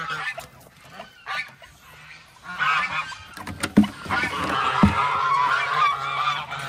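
Domestic waterfowl calling in a loud chorus of honks, building up from about two and a half seconds in, with a couple of sharp knocks midway.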